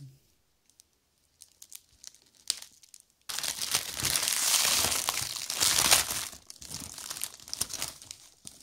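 Foil egg wrapper being unwrapped by hand, crinkling: a few faint ticks at first, then loud dense crinkling starting about three seconds in, easing to lighter crackles near the end.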